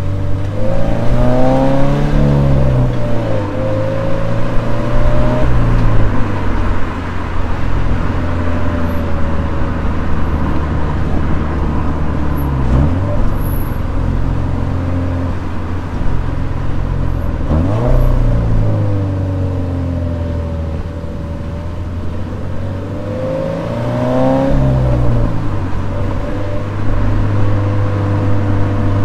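Toyota 86's 2.0-litre flat-four boxer engine running steadily under way, its revs swinging down and back up a few times.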